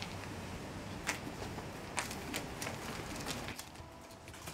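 Steady outdoor background noise with a few light clicks or taps, the clearest about a second and two seconds in.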